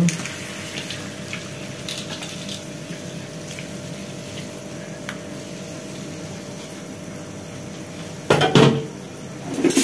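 Pork bones lowered by hand into a pot of hot water on a gas stove, with light splashing and small knocks, over a steady hum. Two louder clattering knocks near the end.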